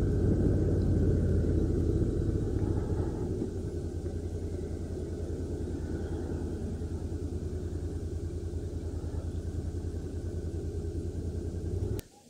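Honda NC750X motorcycle's parallel-twin engine running at low speed, then settling into a steady, evenly pulsing idle about three seconds in; the sound cuts off suddenly with a click near the end.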